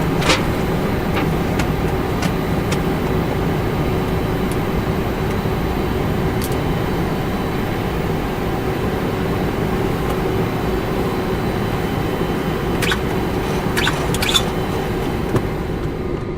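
Steady hum on a Boeing 747-400 flight deck during engine start, with a couple of steady tones running through it. Several short, sharp clicks come over it, most of them near the end.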